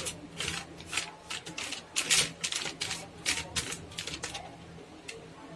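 Butter paper lining a tray crackling and rustling as hands rub ghee over it and smooth it flat: quick, irregular crinkles that grow weaker near the end.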